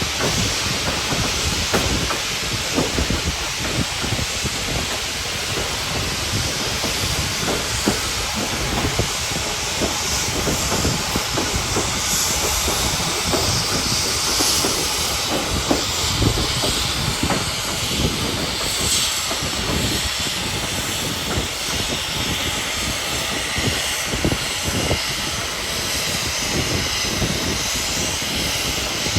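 Steam locomotive 1309, a 2-6-6-2 Mallet, hissing steam steadily and loudly over the rumble and irregular rattle of the running train.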